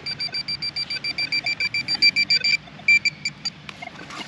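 Metal-detecting pinpointer beeping rapidly in a steady pulse of short high beeps, about six a second, quickening briefly and then stopping a little past halfway, followed by a few stray beeps.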